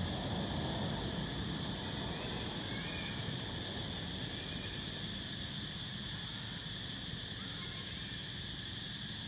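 Steady outdoor ambience of insects buzzing in one unbroken high tone, over a low, even rumble.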